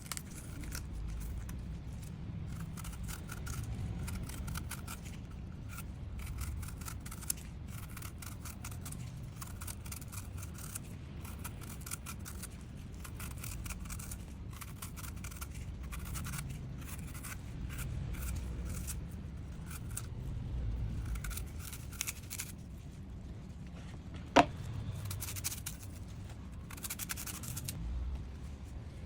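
Kitchen knife cutting and peeling fruit: a long run of rapid small clicks and scrapes, with one sharper, louder click near the end.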